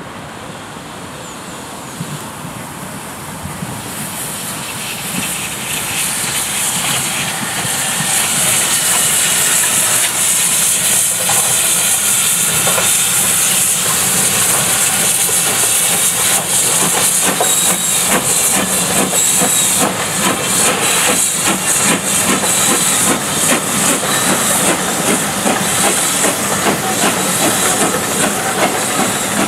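BR Standard Class 4 2-6-4T steam tank locomotive 80072 passing with a train of coaches, giving off a loud steady hiss of steam mixed with the clatter of wheels on the rails. The sound builds over the first few seconds as the engine draws near, then holds.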